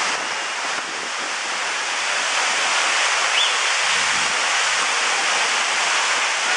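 Waterfall rushing: a steady hiss of falling water.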